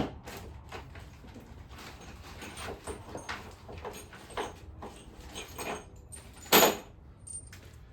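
Loose metal bolts and small hardware clinking and rattling as they are sorted by hand, with one louder clank about six and a half seconds in.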